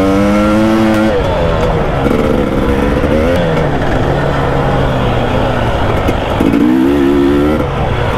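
KTM 300 two-stroke dirt bike engine being ridden hard, heard close up from on the bike. The revs are high at the start, ease off after about a second and climb again near the end as the rider works the throttle.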